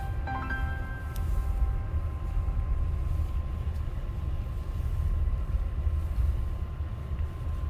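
Low, steady rumble inside a Toyota Sienna minivan as it creeps through the snowy alley, with a faint steady whine over it. A few notes of background music fade out about half a second in.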